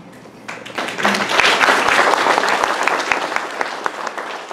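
Audience applauding, starting about half a second in, swelling over the next second, and slowly tapering off.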